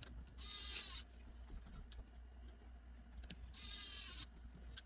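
Two short hissing sprays about three seconds apart, each about half a second long, as the phone's glass is cleaned of fingerprints.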